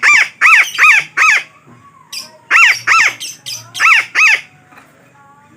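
Betet parakeet squawks: loud, harsh calls, each sweeping up and back down in pitch, four in quick succession, a short pause, then more in twos and threes, dying away about a second before the end.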